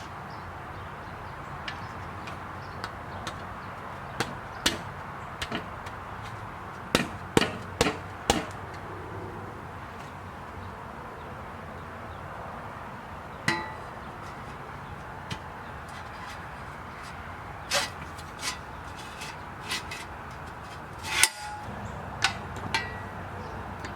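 Scattered metallic knocks and clinks of steel squat-stand parts and tools being handled during assembly, a few ringing briefly. The loudest knock comes about 21 seconds in, over a steady background noise.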